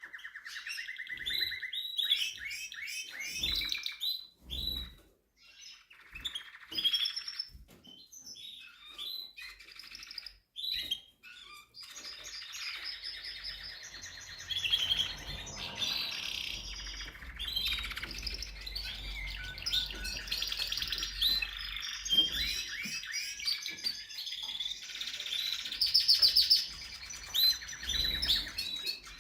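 Spanish Timbrado canary singing: fast trills and rolling phrases, broken by short pauses for the first dozen seconds and then almost unbroken.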